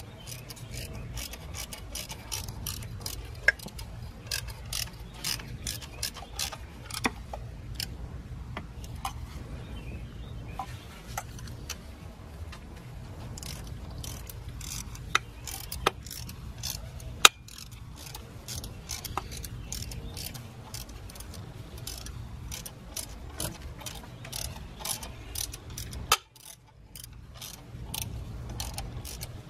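Hand ratchet wrench clicking in quick runs, a few clicks a second, as the drive-belt tensioner's Torx E12 mounting bolts are run in and tightened. A few louder metal knocks stand out.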